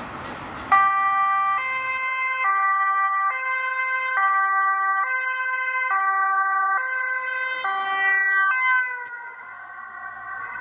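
Dutch ambulance's two-tone siren switching on abruptly and alternating high and low about every second. Near the end its pitch drops and it grows quieter as the ambulance passes and drives away.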